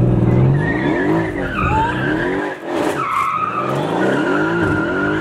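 Mercedes-AMG car accelerating hard, heard from inside the cabin: the engine's pitch rises and falls in repeated sweeps, and a high, steady tyre squeal joins about halfway through.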